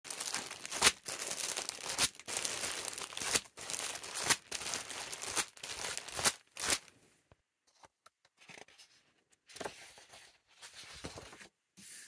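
Clear plastic cellophane bag crinkling and crackling loudly as it is opened and handled, with sharp crackles. From about seven seconds in, quieter short rustles of paper prints being slid out and laid on a wooden table.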